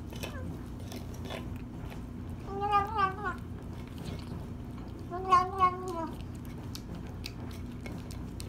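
Kitten eating wet food from a stainless steel bowl, with small wet chewing and licking clicks, and twice a short, wavering, whiny vocal sound made while eating, about two and a half seconds in and again about five seconds in.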